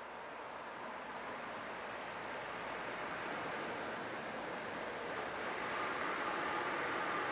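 Night insects singing one steady, unbroken high-pitched note, over a rushing background noise that grows louder over the first few seconds and then holds.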